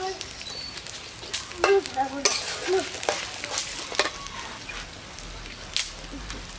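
Sliced onions sizzling in hot oil in a metal karahi, stirred with a steel spatula that scrapes and knocks against the pan several times, most often in the first half.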